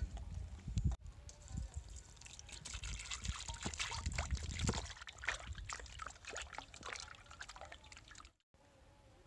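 Water poured from above splashing into a steel bowl of water holding a raw whole chicken, then hands sloshing the chicken about in it. The splashing stops abruptly near the end.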